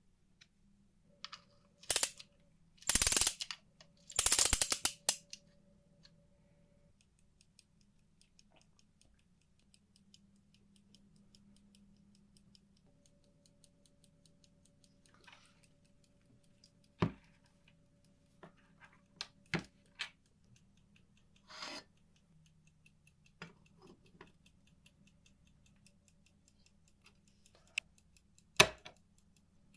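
Handling clicks and rattles from work on a mantel clock: a few bursts of rapid rattling clicks in the first five seconds, then scattered single sharp clicks and knocks, the loudest near the end.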